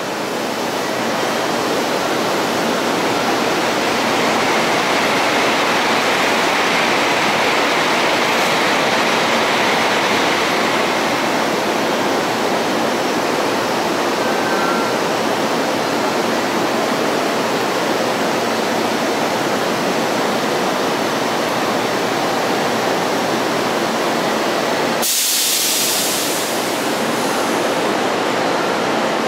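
Steady loud rushing noise of trains at a station platform, with a short, sudden high hiss near the end.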